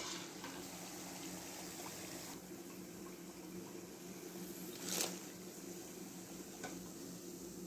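Faint steady hiss of pakoras frying in hot oil in a kadai, under a low steady hum, with a few light clicks as fried pakoras are set into a wire mesh draining basket, the loudest about five seconds in.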